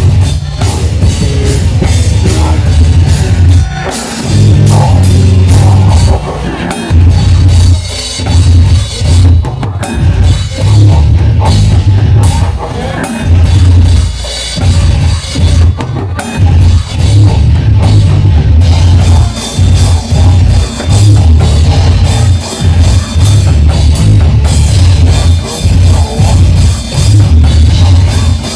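Live extreme metal band playing, heard from the drum kit, which is loudest. Heavy, fast low drum hits come in stop-start bursts every second or two, broken by short drops.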